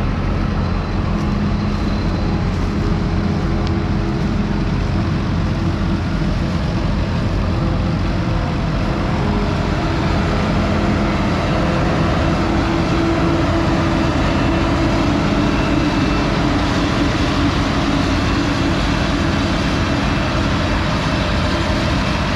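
Tractor engine running steadily under load, a continuous low drone.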